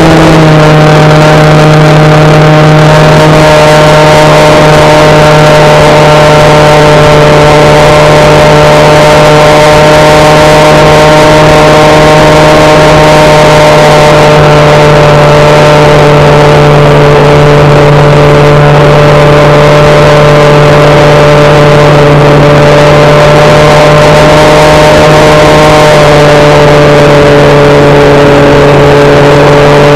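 Electric motor and propeller of a HobbyKing SkyEye FPV plane, heard loud from its onboard camera, droning at a steady cruise pitch with wind rush over the microphone. The pitch drops slightly late on.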